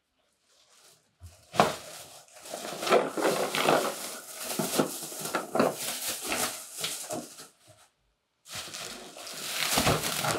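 Thin plastic shopping bag rustling and crinkling as items are pulled out of it, with a pause of about half a second, then more rustling ending in a thump near the end as something is set down.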